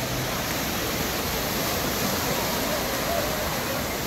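Sea surf breaking and washing up a sandy beach: a steady, even rush of waves.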